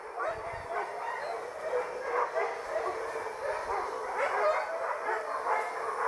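A pack of boar-hunting dogs barking and yelping without a break, many voices overlapping, as they chase a wild boar.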